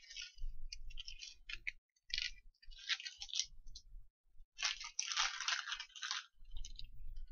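Irregular crinkling and rustling of a small parts packet being handled, in several short bursts with a longer stretch around the middle, along with soft low bumps of things moved on the bench.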